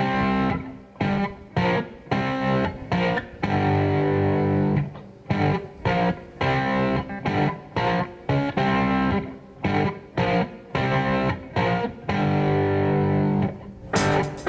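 Background music with electric guitar, chords broken off in short rhythmic stops.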